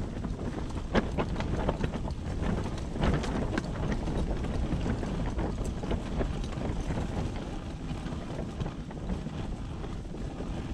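Steady low wind noise on the microphone, with a few soft knocks in the first four seconds.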